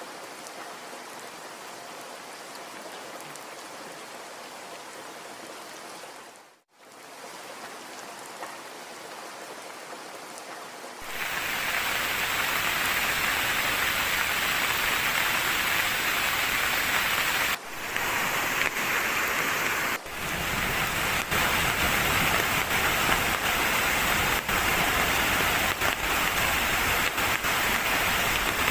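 Steady rain with rushing water, with a brief break about six seconds in. From about eleven seconds on it is much louder: heavy rain and muddy runoff streaming across a road, broken twice by short gaps.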